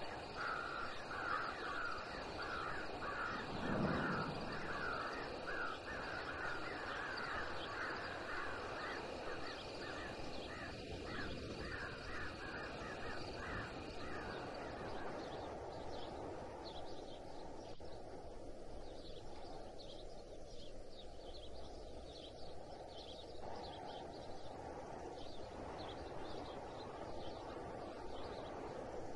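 Crows cawing in a quick, continuous run of calls over a steady high tone. After about fifteen seconds the calls give way to fainter, higher bird calls. A single low thump about four seconds in is the loudest moment.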